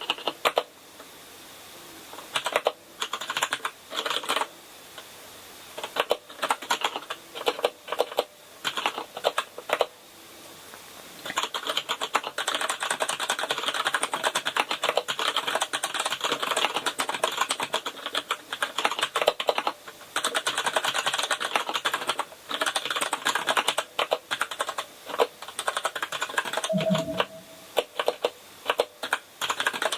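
Typing on a KINESIS Advantage contoured keyboard with brown mechanical switches: scattered single keystrokes for the first ten seconds or so, then fast, continuous typing with one short break, thinning out to scattered keystrokes again near the end.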